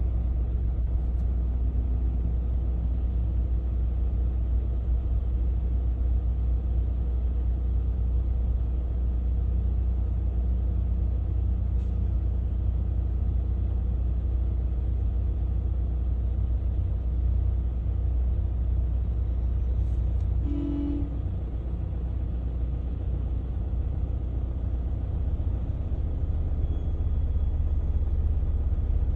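Steady low rumble of a car's engine and road noise heard inside the cabin in slow traffic. A short pitched beep sounds once about two-thirds of the way through.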